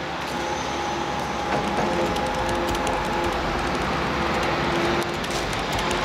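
Hydraulic excavator working: its diesel engine and hydraulics make a steady mechanical drone with a few held whining tones over a low rumble, and a couple of brief clanks.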